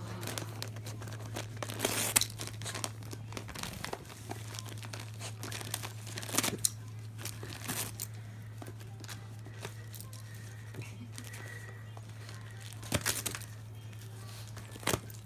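A West Highland White Terrier tearing and crinkling gift-wrapping paper with her mouth: irregular crinkling with a few sharp, louder rips, over a steady low hum.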